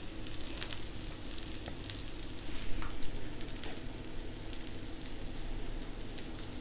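Green pea dosa batter sizzling on a hot tawa: a steady frying hiss scattered with small crackles.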